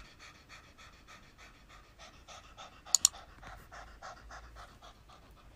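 An orange tabby cat panting open-mouthed: soft, rapid breaths at about five a second. Two sharp clicks come close together about three seconds in.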